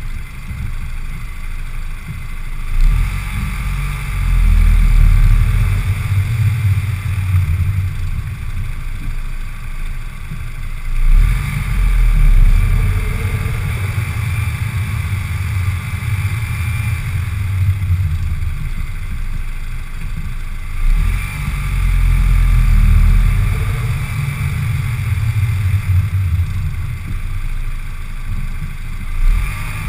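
Audi A4 B8 2.0 TFSI turbocharged four-cylinder, heard with the hood open, pulling away from a standstill three times, each start a surge of engine sound lasting several seconds. It is recorded for an intermittent noise that comes right after the clutch is released under acceleration, with the car hesitating and jerking when it is loud.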